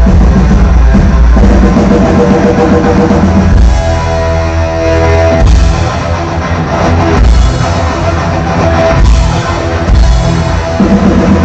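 Heavy metal band playing loud live: distorted electric guitar, bass and drum kit, with a held guitar note about four seconds in.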